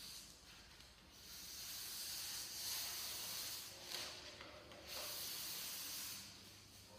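Backing paper being peeled off air-release vinyl stripe: a steady hiss as the adhesive lets go, in two long pulls with a short break a little after four seconds in.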